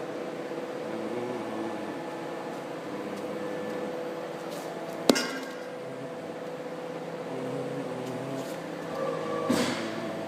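CNC tube-bending machine running with a steady motor hum whose tones step up and down as it moves, a single sharp metal clank with a short ring about five seconds in, and a brief rush of noise near the end.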